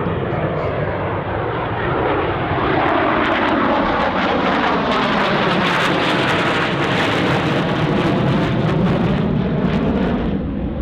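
Jet noise from a Northrop B-2 Spirit stealth bomber's four turbofan engines as it flies low past. It is a loud, steady rush with a slowly sweeping, phasing hiss and some crackle, at its loudest around the middle, easing slightly near the end.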